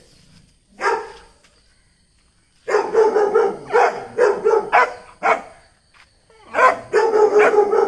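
A dog barking: one bark about a second in, then a fast run of barks, a short pause, and another fast run near the end.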